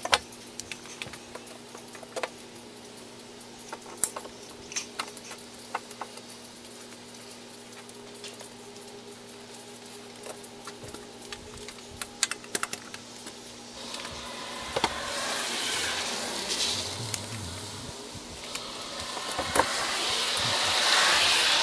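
Scattered light clicks and taps of hand work on a plywood panel being freed from a window opening. About two-thirds of the way in, and again near the end, passing cars swell and fade as a hiss of tyres on a freshly seal-coated road, crunching over loose stones. The second car is the loudest sound.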